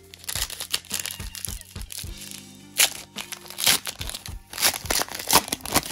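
Foil wrapper of a Panini Chronicles basketball card pack crinkling and tearing as gloved hands rip it open: a run of irregular sharp crackles, loudest in the second half. Background music plays underneath.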